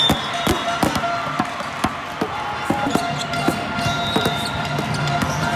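Volleyballs being hit and bouncing on the court floor in a busy indoor hall, heard as irregular sharp thuds, about two or three a second. Music and other steady tones play under the thuds.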